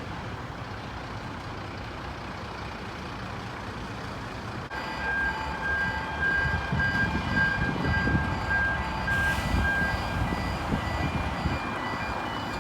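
Steady background traffic noise. About five seconds in, a fire truck's engine comes in louder, with an electronic warning beeper sounding about twice a second.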